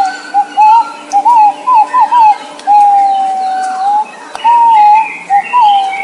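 A bird calling in a series of clear, loud whistled notes, some short and wavering up and down, one held steady for over a second about three seconds in. Other birds chirp faintly and higher in the background.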